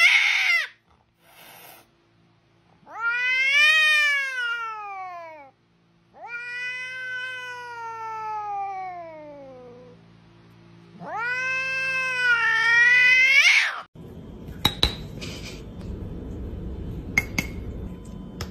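A cat yowling in long, drawn-out cries, three of them lasting several seconds each, swooping up and then down in pitch. Near the end the cries give way to a few sharp clicks.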